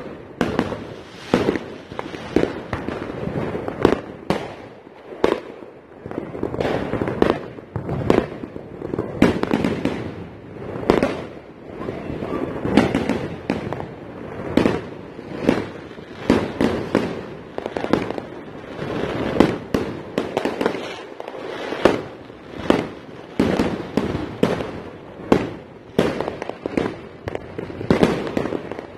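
Fireworks going off without a pause: a dense run of bangs, several a second, over continuous crackling from aerial bursts.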